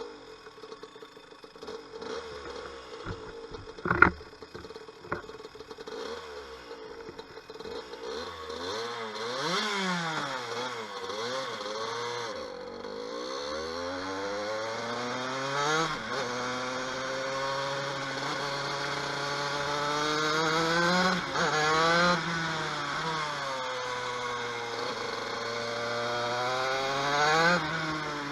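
A TM KV92 125cc two-stroke shifter kart engine starting up and pulling away, its note climbing and dropping over and over as it revs and changes gear, and getting louder as it goes. A single sharp knock comes about four seconds in.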